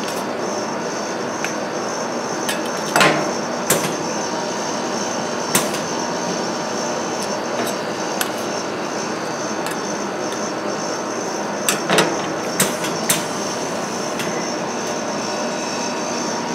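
Metal spatulas scraping and knocking on the steel cold plate of a rolled-ice-cream pan, with a handful of sharp clicks, several close together about twelve seconds in. Behind them runs a steady mechanical hum.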